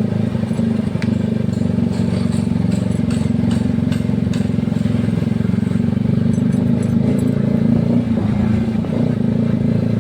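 Yamaha R15 V3's single-cylinder engine and exhaust running steadily under way, a bassy note that holds an even pitch.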